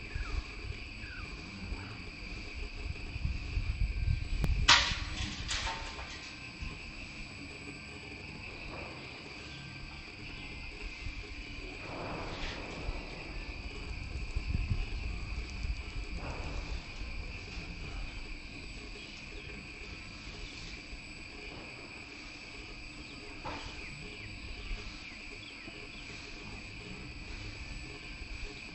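Steady, high-pitched insect drone. A few sharp knocks from workers building tin housing come through, two close together about five seconds in and one near the end.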